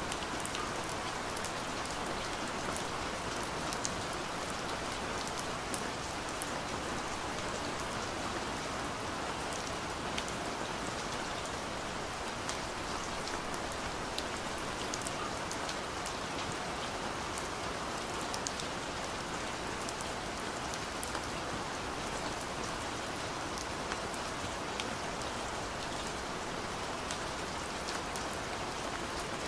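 Steady rain falling, with many small, sharp drop ticks scattered throughout.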